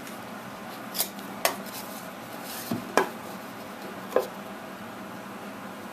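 Light metallic clicks as a steel square and a utility knife knock against each other and the board while knife lines are scored around its edge, five separate clicks, some with a short ring.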